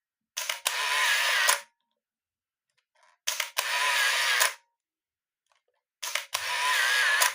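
Canon AF35M compact film camera firing and auto-winding: a shutter click, then about a second of motor whir as the film advances to the next frame, three times about three seconds apart. The steady winds show the film-advance motor working properly.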